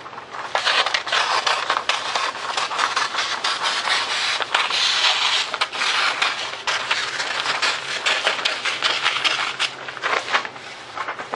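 Scissors cutting through a large paper plan sheet, a steady crackling crunch of paper with many small snips and rustles as the sheet is handled.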